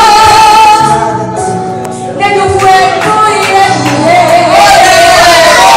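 A woman singing a Spanish ballad in a strong voice, with long held notes and vibrato, over instrumental backing music. The voice drops back briefly about a second in and returns strongly about two seconds in.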